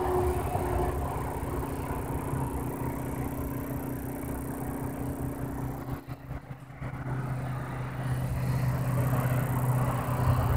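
Homemade Bedini pulse motor running, its rotor spinning under a coil pulsed by an N-channel MOSFET with a reed-switch trigger: a steady hum that dips briefly about six seconds in.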